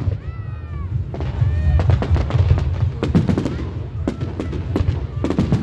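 Fireworks display going off: a rapid, irregular run of sharp bangs and crackles over a low rumble, with a short rising-and-falling whistle near the start.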